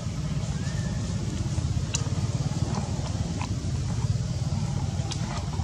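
A steady low motor rumble, with a few faint short clicks.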